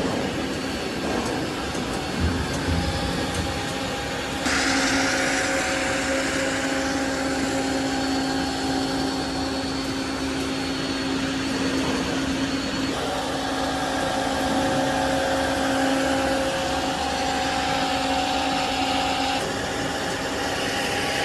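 PE/PP plastic pipe extrusion line running: a steady motor hum with a few held tones and a hiss, the mix changing abruptly about four seconds in, again near the middle, and once more near the end.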